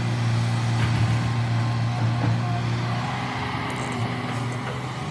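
Heavy earthmoving machine's diesel engine running steadily, with a few faint clinks over it.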